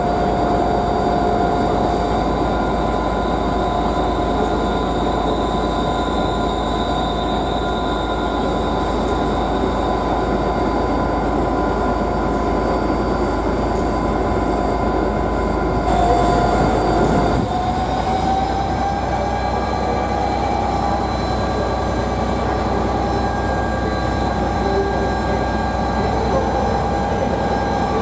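A ScotRail Class 380 electric multiple unit pulls out with a steady whine. About 16 seconds in, the sound changes abruptly to a pair of Class 57 diesel locomotives, whose note rises for a couple of seconds and then holds steady as they start to move off.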